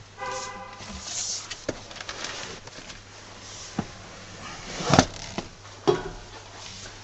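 A brief pitched tone near the start, then a few sharp clicks and knocks of handling inside a pickup's cab, the loudest about five seconds in.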